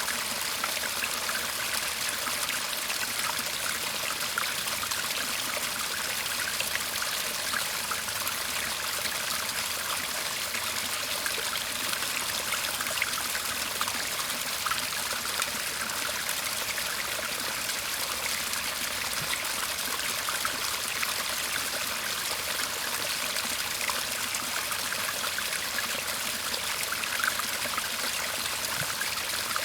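Shallow garden stream babbling steadily: an even rush of running water, with small trickles and splashes scattered through it.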